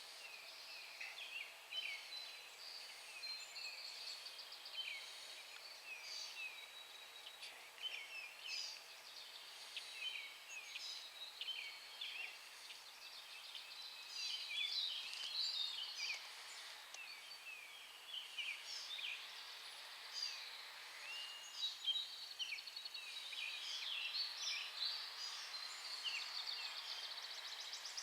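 Many songbirds singing at once: a woodland chorus of short, high chirps and whistled notes overlapping throughout, with a rapid high trill near the end.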